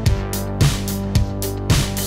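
Instrumental background music with a steady drum beat, a kick drum about twice a second under held chords.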